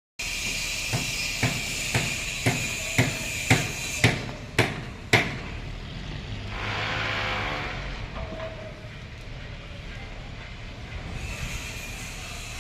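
Construction-site noise: about nine sharp, regular impacts, about two a second, over a steady machine hum, stopping about five seconds in, followed by a brief rush of noise and a low rumble.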